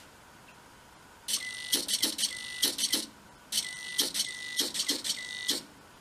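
A servo-driven homemade Morse key sends two short bursts of code. Each stroke of the small hobby servo gives a whirring click, and a Tecsun PL-600 receiver tuned to the 40-metre CW signal gives a steady beep in step with the keying.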